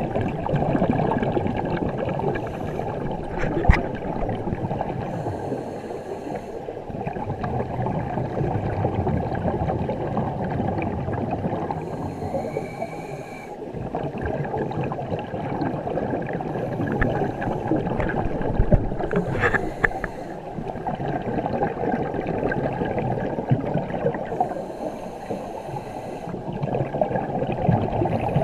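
Scuba diver breathing through a regulator underwater: a muffled, continuous rumble of exhaled bubbles and breathing that swells and eases every few seconds, with one sharp click about four seconds in.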